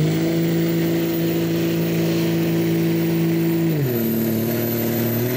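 Dodge Ram diesel pickup engine running flat out under heavy load as it drags a pulling sled, a steady hard-worked note. About four seconds in the pitch drops, then it climbs a little again.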